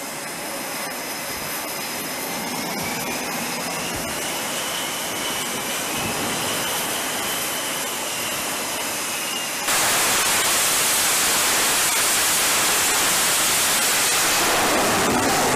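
Jet engines running on an aircraft carrier's flight deck: a steady rushing hiss with a faint turbine whine that rises and falls. About ten seconds in, it jumps suddenly to a much louder, denser hiss of jet noise.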